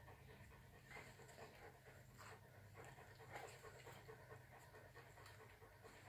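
Faint sniffing and panting of a young dog nosing through a snuffle mat, coming as short irregular breaths a few times a second.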